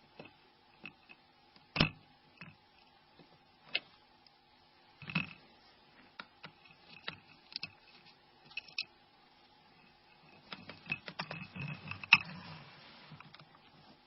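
Small sharp clicks and taps of metal tweezers working on a Nokia N93's plastic parts, levering out a ribbon connector. Single clicks come a few seconds apart, then a quicker cluster of clicks near the end, over a faint steady hum.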